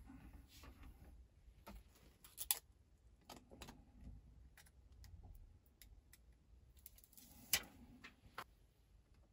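Faint handling noises: scattered small plastic clicks and rustles as a dashcam and its power cable are handled. There are two sharper clicks, one about two and a half seconds in and another about five seconds later.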